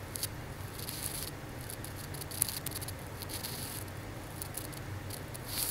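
Quiet room tone with a steady low hum and a few faint, short clicks from a computer mouse as editor tabs are clicked, one a little louder about two and a half seconds in.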